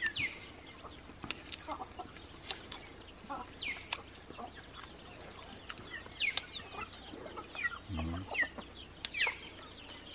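Chickens in the yard: repeated short, falling peeps and clucks scattered throughout, with a few sharp clicks among them.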